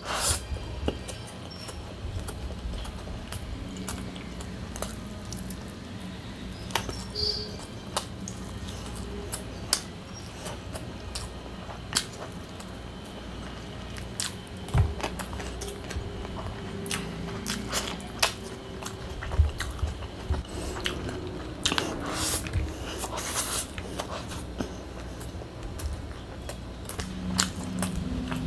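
Close-miked chewing and biting of chicken biryani and chicken, with many wet mouth clicks and smacks scattered throughout.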